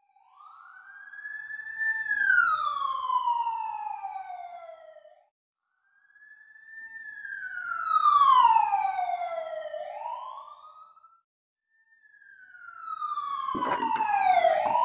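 Emergency siren sound effect: three long wails, each sliding down in pitch as it swells and fades, with short silences between. A few sharp clicks come near the end.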